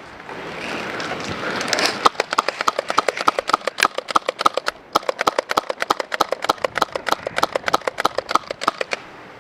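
Airsoft guns firing a rapid, irregular string of shots, several a second, in an exchange of fire, after about two seconds of rustling movement.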